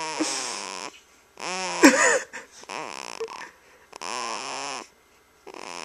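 Baby making little snore-like noises, a short breathy sound with some voice in it repeated about once a second, five times, the second the loudest.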